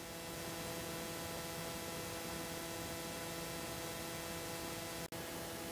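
Steady electrical hum over a faint hiss, with no other sound. It breaks off for an instant about five seconds in.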